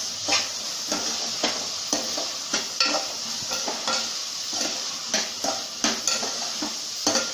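A spoon stirring chickpea masala in a frying pan over a steady sizzle, scraping and knocking against the pan about twice a second.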